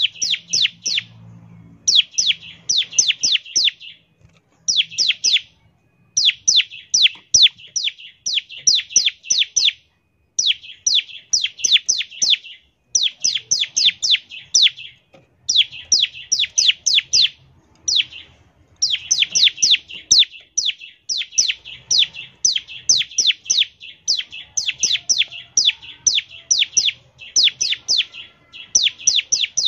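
Bar-winged prinia (ciblek) singing in the rapid 'ngebren' style. It gives quick runs of sharp, high, downslurred notes, several a second, in bursts of a second or two separated by brief pauses.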